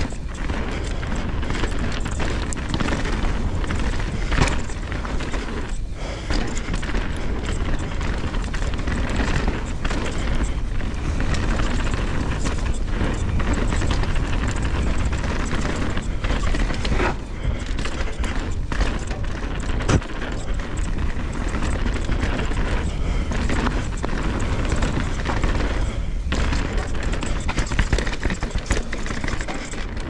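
Mountain bike riding down a dirt trail: wind buffeting the action camera's microphone in a steady low rumble, with frequent sharp knocks and rattles from the bike over the trail.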